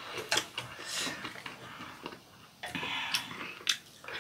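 Close-up eating sounds: chewing kimchi and rice, with a few sharp clicks of chopsticks against bowls.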